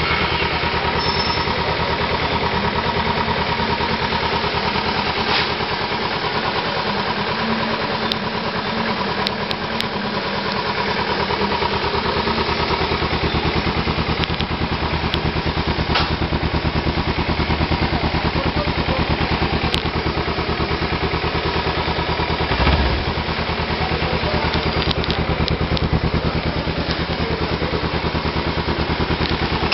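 Kawasaki Ninja 300 parallel-twin engine idling steadily through a Roncar two-way aftermarket exhaust tip, with one brief louder swell about three-quarters of the way through.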